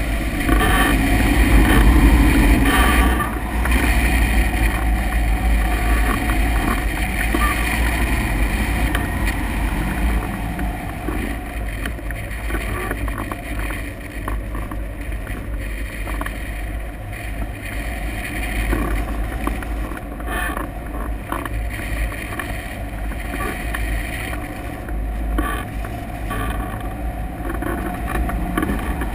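Wind rushing over a hang glider in flight and buffeting the wing-mounted camera's microphone: a steady, loud wind rumble, deepest in the bass.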